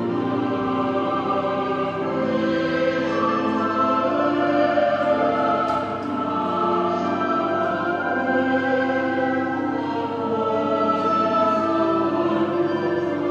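Choir singing slow sacred music, with long held chords that change every second or two.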